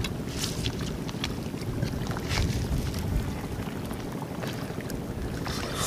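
Steady low rumble of wind buffeting the microphone, with scattered small clicks and crackles.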